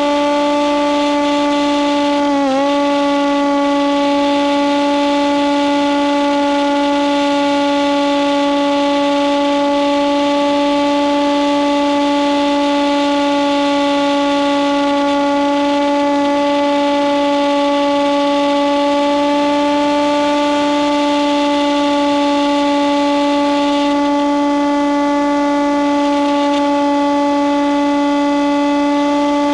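Electric motor and propeller of a Hawk Sky RC glider running at a steady cruise throttle, heard through the onboard camera's microphone: one steady whining drone. Its pitch dips for a moment about two seconds in.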